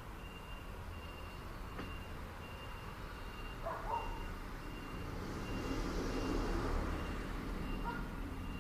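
Vehicle reversing alarm beeping in evenly spaced high beeps over a low engine rumble, with a vehicle passing that is loudest about six seconds in.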